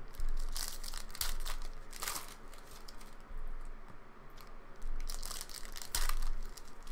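Foil trading-card pack wrappers crinkling and tearing as packs are opened by hand, in several short bursts.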